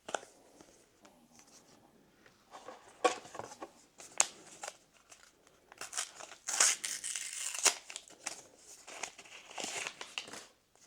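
Foil trading-card booster pack being crinkled and torn open, in several separate crackly rustles with a few sharp clicks; the longest rustle comes a little past the middle.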